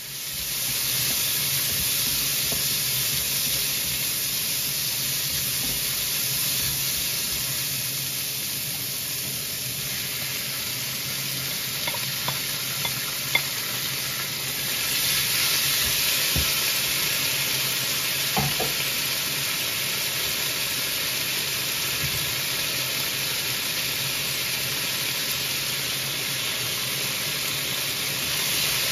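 Beef strips, red bell pepper and onion sizzling as they are stir-fried in a wok, with a spatula scraping and knocking against the pan now and then. The frying hiss grows a little louder about halfway through.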